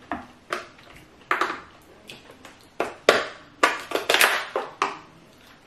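Shell of a giant lobster claw cracking and snapping as it is broken open by hand: a string of about a dozen sharp cracks, few at first and coming quickly one after another in the second half.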